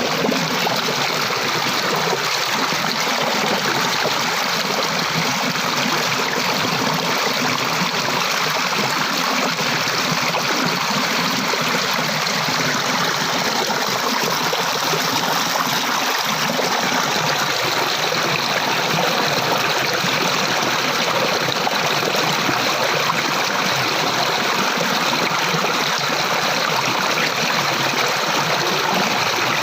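Flowing water running steadily, a stream-like rush with light trickling.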